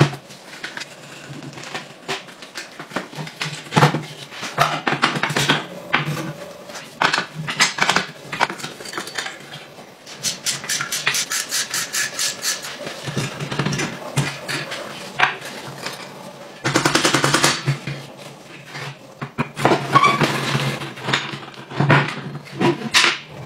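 Metal clinks and knocks of hand tools and parts on a rusty steel pocket bike being taken apart. About halfway through, a socket ratchet clicks in rapid, even runs as a bolt under the engine is undone.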